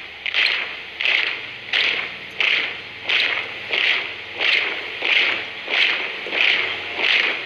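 Boots of a marching troop stamping in unison on pavement, a steady cadence of about three crisp stamps every two seconds.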